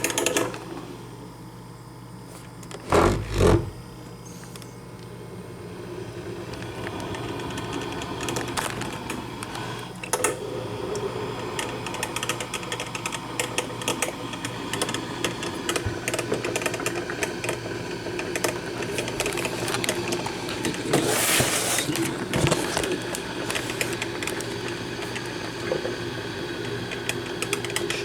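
Black & Decker thermal carafe drip coffee maker starting to brew: a thump about three seconds in, then a sputtering sound full of small clicks builds up and runs on steadily as the heater pushes water up to the brew basket.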